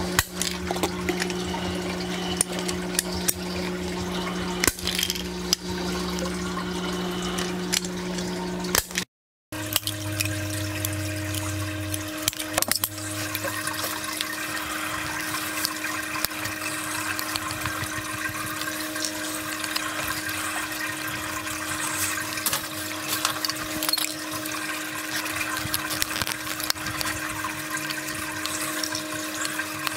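Steady machine hum with a water-like rushing noise, scattered with small clicks and taps of plastic drip tubing and fittings being handled; the sound cuts out briefly about nine seconds in and the hum comes back at a different pitch.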